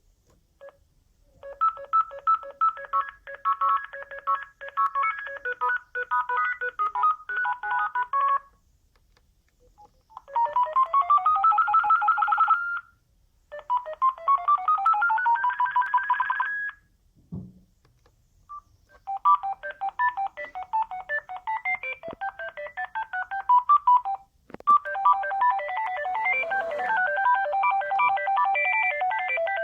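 Sagem myX-1 Trio mobile phone ringtones playing one after another: several short electronic beeping melodies, two of them fast runs of notes climbing in pitch, with brief pauses between them. A soft knock falls in one pause.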